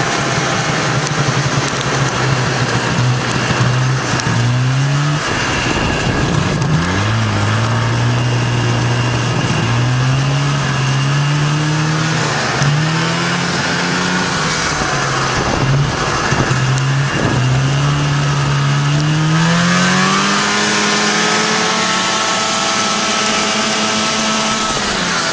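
Vintage snowmobile engine running hard, its pitch climbing and falling back several times as the throttle is worked, then rising in one longer climb and holding high near the end.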